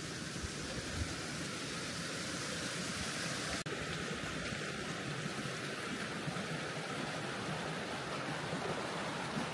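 Small rocky hill stream running over stones and little cascades: a steady rushing of water.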